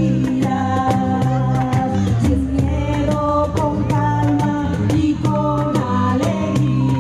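Live ethnic-folk band music: held melodic notes with singing over a steady percussion beat.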